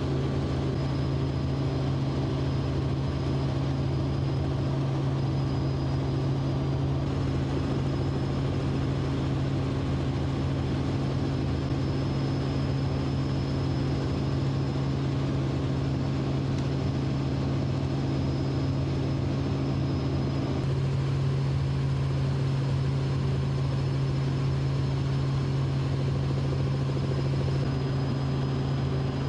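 Steady drone of a helicopter's engines and rotor, heard from on board, with a thin high whine above it. It grows slightly louder about 21 seconds in.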